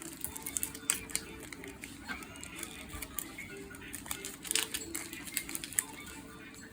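Faint music with steady held tones, under many scattered sharp clicks and taps.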